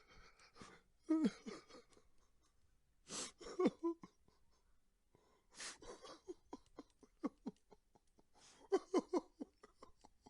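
A man crying: short, shaky sobs that fall in pitch, broken by sharp gasping breaths in, coming in clusters with quiet pauses between.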